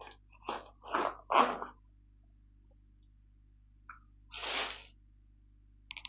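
Short scraping and rustling bursts of a cardboard box as a spring twister exerciser is slid out of it: a quick cluster in the first second and a half, loudest just over a second in, then one more burst about four and a half seconds in.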